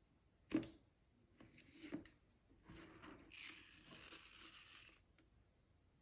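Quiet hand-handling sounds from unboxing a small leather accessory and its packaging: a light tap about half a second in, another around two seconds, then a scratchy rustle lasting a couple of seconds.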